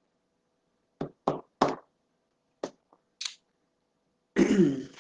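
A woman with a chest cold coughing: three quick coughs about a second in, a couple of smaller brief sounds, then a longer voiced cough or throat clear near the end.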